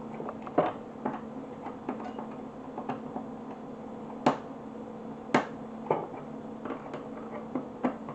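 Screwdriver clicking and tapping on the screws of an Atari 410 program recorder's circuit board as they are worked loose: irregular sharp clicks a second or so apart over a low steady hum.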